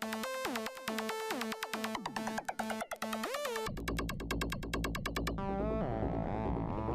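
Electronic synthesizer music: short, rapid synth notes, then a deep bass comes in about four seconds in, with a rising sweep near the end.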